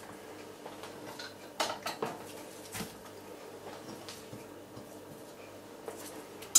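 Chopped vegetables dropped by hand into a slow cooker pot, with scattered light knocks and clatters of food and kitchenware, the sharpest knock at the very end.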